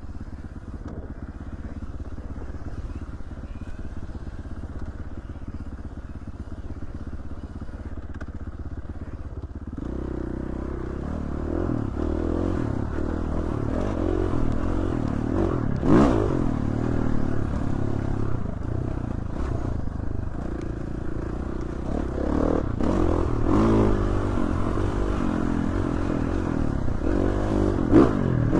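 Dirt bike engine running on a trail ride: steady and quieter at first, then from about ten seconds in revving up and down as the throttle is worked. Two sharp knocks stand out, one about halfway and one near the end.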